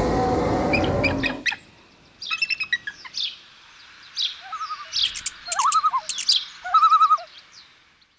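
A falcon calling in a series of short, sharp, high calls and chirps, some with a wavering note. Before the calls, a loud intro sound effect ends about a second and a half in.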